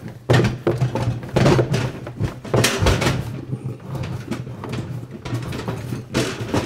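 Plastic outer tub of a Whirlpool top-load washer being rocked back and forth and pulled upward, knocking and clattering irregularly against the machine as it works loose from the basket drive shaft.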